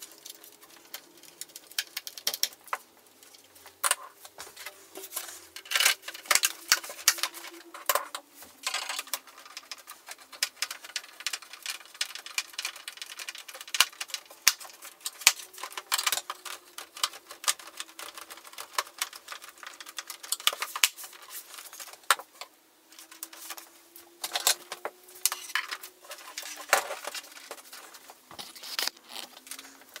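Rapid, irregular clicking and clattering of hands and a screwdriver working the metal shield and plastic back cover of an HP all-in-one PC as it is put back together, played back sped up. A faint hum that wanders in pitch runs underneath.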